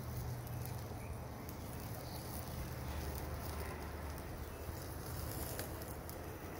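T-bone steak sizzling over glowing charcoal briquettes on a mini grill: a steady soft hiss with a few faint crackles, over a low steady hum.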